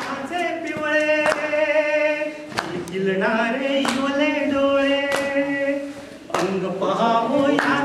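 A group singing a Marathi song in unison, in long held notes that step from pitch to pitch, with a sharp clap-like beat about every second and a bit.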